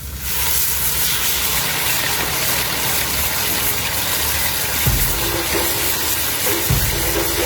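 Food sizzling loudly in a hot pan, starting suddenly just after the start as something hits the hot oil and then holding steady. There are a couple of low knocks near the end.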